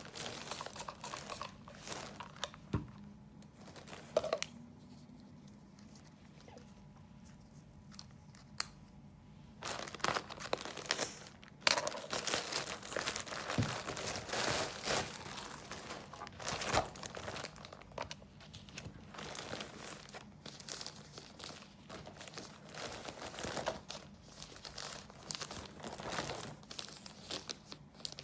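Plastic courier pouch crinkling and tearing as hands pull it open, in irregular bursts of rustling. A quieter spell of several seconds comes about five seconds in, and then the rustling grows busier.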